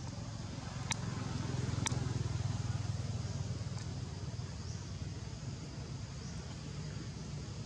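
Steady low rumble of distant motor traffic, swelling a little for a couple of seconds, with two faint sharp clicks about one and two seconds in.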